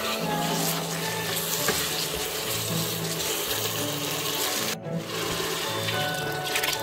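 Background music over a steady hiss: a masala of onion, chilies and tomato sizzling as it is stirred with a silicone spatula in a pan. After a sudden cut about five seconds in, water is poured from a bowl into a rice cooker pot.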